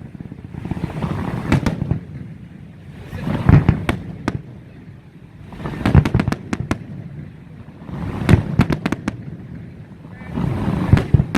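Aerial fireworks shells bursting in a steady sequence, a deep boom about every two to two and a half seconds. Each boom is followed by a quick cluster of sharp cracks.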